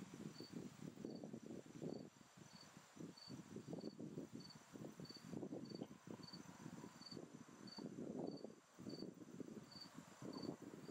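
Gusty wind buffeting the microphone, rising and falling unevenly. Behind it an insect chirps steadily, a short high pulse about twice a second.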